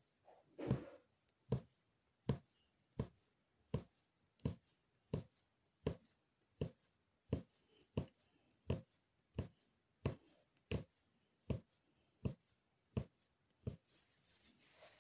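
Punch needle (magic needle) stabbing yarn through fabric stretched taut on a frame, a short tap with each stroke at a steady pace of about three taps every two seconds. The taps stop near the end, giving way to a soft rustle.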